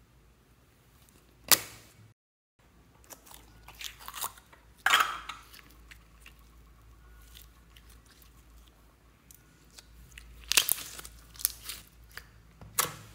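Orange slime squeezed and pressed by hand out of a small plastic tub, making sticky crackling squelches in two spells, with a single sharp click from the tub early on.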